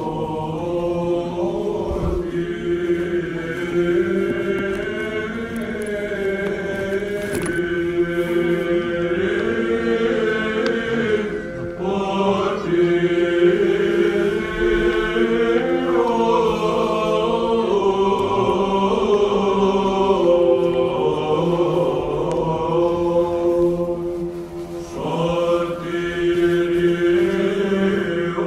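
A Byzantine choir chanting a cappella, the melody moving over a steady held drone note (the ison).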